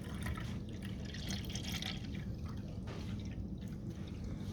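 Water being poured into the water tank of a Nespresso coffee machine.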